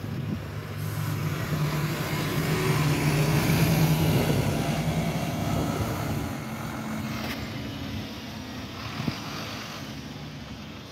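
Irisbus Citelis city bus engine pulling away from a stop. Its steady engine note grows louder over the first few seconds, then fades as the bus drives off.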